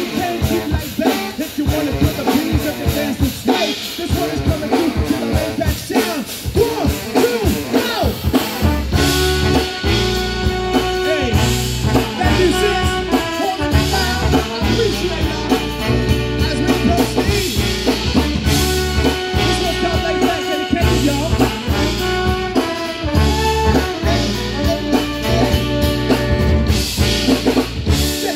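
Live brass band playing over a drum kit: trumpets, trombones and saxophone with a sousaphone on the bass line. About nine seconds in, the band comes in fuller, with a heavy steady bass pulse and held horn chords.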